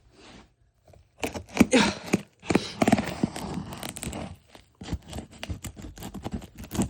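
Scissors cutting open a cardboard box: a quick run of clicks and snips with the scrape and tear of cardboard and packing tape.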